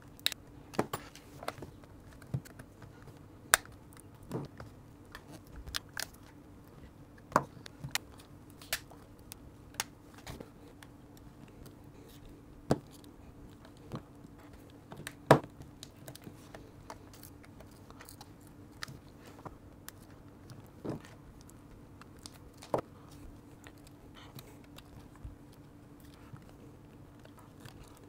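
Side cutters snipping and crunching through the rubber-covered plastic case of a Lytro camera, in irregular sharp snaps every second or so, the loudest about halfway through, over a faint steady hum.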